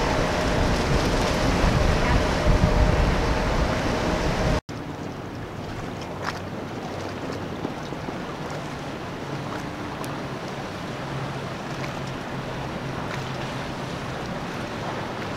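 Center-console boat with several outboard motors running past, a steady engine whine over a low rumble of wind on the microphone. After a sudden cut about four and a half seconds in, a quieter steady low drone of a motor yacht's engines cruising, with water washing.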